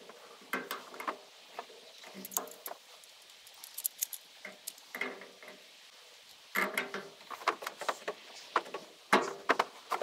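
A hand wrench clinking and scraping on metal pipe fittings as a 90-degree elbow is threaded and tightened onto a fuel transfer pump, in irregular clicks and short scrapes with pauses between.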